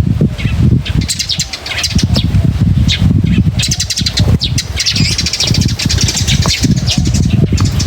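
Many small birds chirping and trilling at once, a dense, overlapping chorus of short high calls, over a continuous low rumble.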